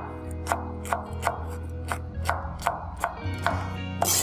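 Cleaver slicing chili peppers on a wooden cutting board: even knocks of the blade hitting the board about three times a second, with a louder knock near the end, over background music.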